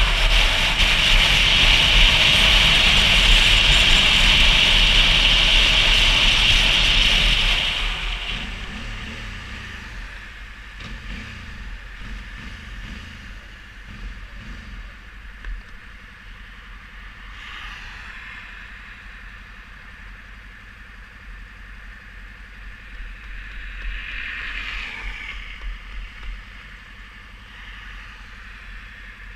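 Wind and road noise from a motorcycle riding at speed, easing off about eight seconds in as the bike slows. After that the engine idles low and steady while stopped, and twice a passing vehicle's noise swells briefly.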